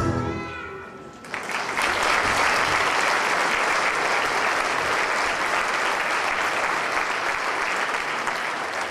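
The end of a children's choir song dies away in the first second, then an audience breaks into steady applause.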